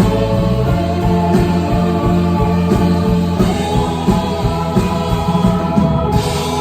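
Indie rock band playing live: sustained chords ringing over a steady drum pulse, with voices singing.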